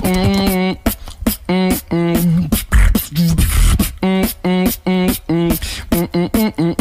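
A beatboxer performing close into a microphone: a quick, steady rhythm of sharp percussive hits alternating with held, pitched hummed bass notes.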